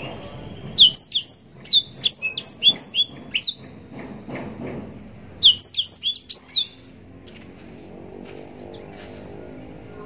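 Blackthroat (black-throated canary) singing: two bursts of quick, sharp, high notes, each sliding downward. The first burst starts about a second in and lasts nearly three seconds; the second comes about five and a half seconds in. A faint low rumble runs underneath.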